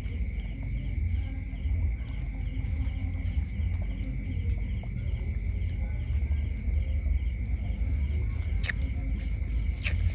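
Crickets and other night insects chirping steadily in an even, pulsing chorus over a low rumbling noise, with two sharp clicks near the end.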